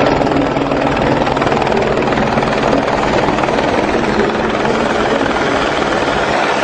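Helicopter in flight: loud, steady rotor and engine noise.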